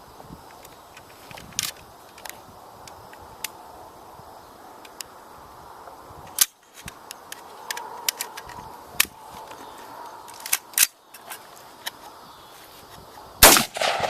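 Bushmaster AR-15 firing steel-case Tula .223 rounds as a few separate shots several seconds apart, the loudest near the end, with small clicks and knocks between.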